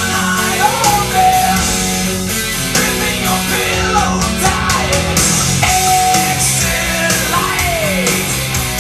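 Heavy metal recording with distorted electric guitars and drums, played loud through Yamaha NS-2000 floor-standing loudspeakers driven by a McIntosh MC275 tube amplifier, and picked up in the room.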